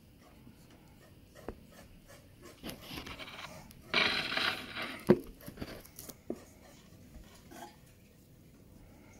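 Graphite pencil drawing long strokes on paper: two scratchy lines about three and four seconds in, the second louder. A sharp knock just after five seconds is the loudest sound, followed by a few light clicks.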